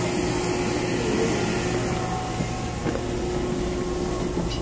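Steady running noise inside a passenger train carriage: an even rumble and hiss with a steady low tone.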